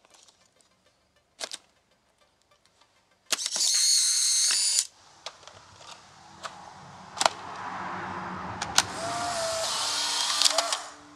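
Polaroid integral cameras being loaded with 600 film packs: plastic clicks of the film doors, and a little over three seconds in the camera's motor whirs for about a second and a half, ejecting the dark slide from the fresh pack. After a sharp snap of a film door closing, a second, quieter motor whir builds and cuts off near the end.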